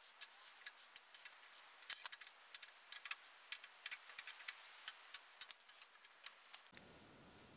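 Small loose steel bearing balls clicking faintly against each other and the steel race as they are set one at a time into the ball groove of a Sipp drill press's multipart bearing. The clicks are many, short and irregular, a few each second.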